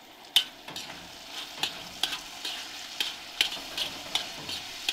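Chicken frying in a wok, stirred with a utensil that scrapes and clacks against the pan about two or three times a second over a steady sizzle.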